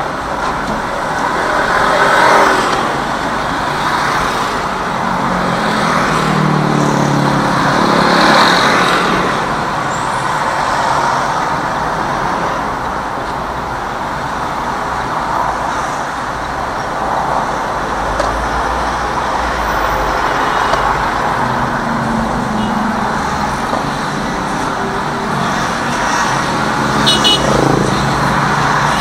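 City road traffic heard from inside a car: steady engine and road noise. A vehicle's engine rises in pitch several seconds in as traffic pulls away, and a brief high squeal comes near the end.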